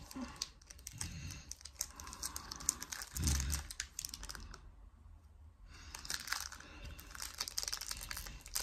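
Crinkling and crackling of a foil packet being handled and worked open by hand, in quick irregular bursts that ease off for about a second just past the middle. A dull bump about three seconds in.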